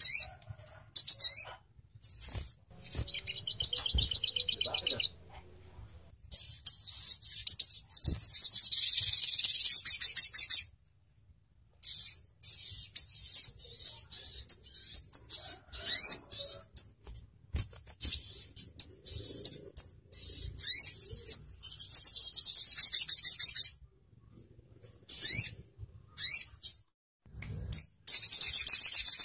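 Olive-backed sunbird (sogok ontong) singing: sharp high chirps and quick upward-sweeping notes, broken by four long, rapid trills of two to four seconds each. These are the sharp trill bursts that bird keepers call 'nembak'.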